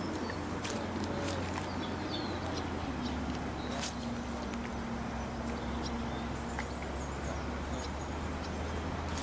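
Outdoor ambience: faint, scattered bird chirps over a steady low hum, with a few sharp clicks.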